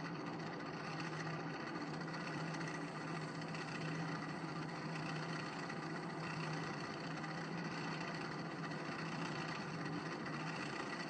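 Wood lathe running steadily, a steady motor hum as the western red cedar piece spins in its chuck while a cloth is held against it to buff on a carnauba wax finish.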